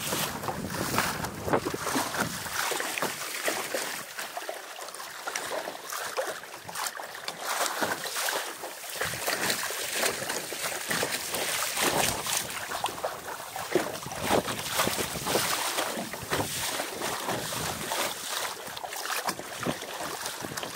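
Water rushing and splashing along the hull of a Laser sailing dinghy under way, in irregular slaps, with wind buffeting the microphone.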